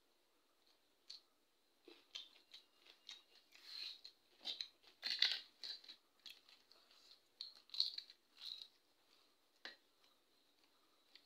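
Crisp papad being broken by hand and eaten: a run of short, sharp crackles and crunches, loudest around the middle.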